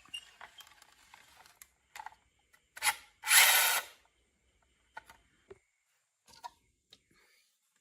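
Marbles clicking and rolling down a toy marble run, with scattered sharp clicks and a louder rolling rush lasting under a second about three seconds in.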